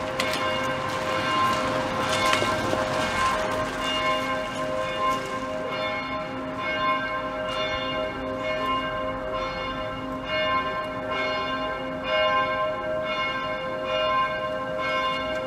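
Church bells ringing in a continuous peal: several bells sounding together, each struck again and again, their tones ringing on between strokes.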